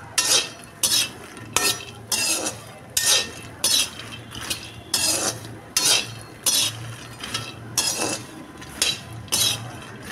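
A perforated metal spoon scraping and knocking against a metal kadhai, about three strokes every two seconds, as it stirs fox nuts (makhana) roasting in the pan. The light puffed seeds rattle as they are turned.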